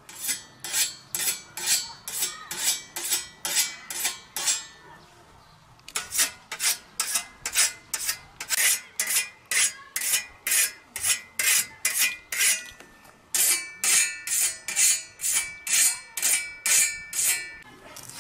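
A steel scythe blade being whetted with a sharpening stone: quick, even strokes along the edge, about two or three a second, each with a brief metallic ring. The strokes come in three runs with two short pauses between them.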